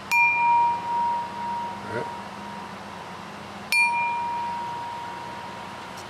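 A 24% lead crystal glass tapped twice, about three and a half seconds apart. Each tap gives a sharp click and then a clear, bell-like ring at one steady pitch that fades slowly over a couple of seconds. A long, clear ring like this is the mark of high-lead crystal.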